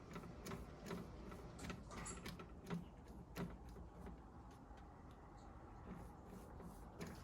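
Faint, irregular light taps and clicks of a paintbrush dabbing paint onto the prop's metal surface, about a dozen spread unevenly.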